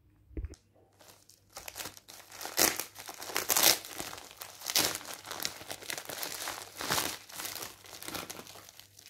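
Plastic poly mailer bag crinkling as it is gripped, handled and pulled open by hand. A soft thump about half a second in.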